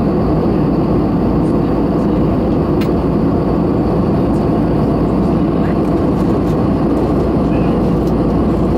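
Steady engine and airflow noise inside the cabin of an Airbus A320 airliner in flight: a constant low rushing that holds the same level throughout.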